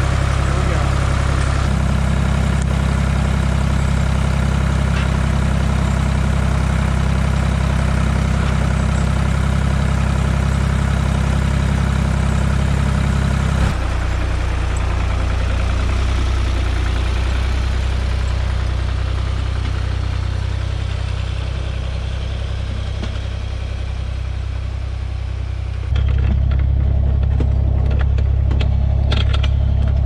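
Tractor engines running steadily, with the engine sound changing abruptly about halfway through and again near the end as it switches between a Ford utility tractor with a front loader and a tractor dragging a large pine log.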